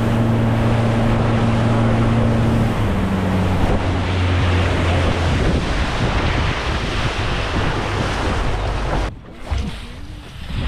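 Boat engine running under way with wind and water rushing past. The engine note drops about three seconds in as it slows, then fades under the wind and water noise, which falls away suddenly near the end.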